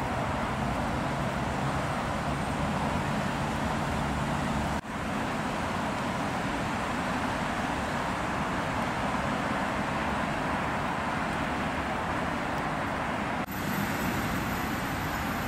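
Steady outdoor city ambience: a continuous hiss and low rumble of road traffic, breaking off briefly twice.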